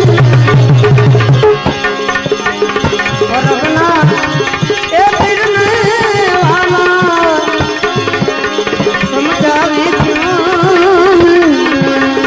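Devotional bhajan music: tabla keeping a steady rhythm under a melodic instrument playing an ornamented line with wavering, sliding notes.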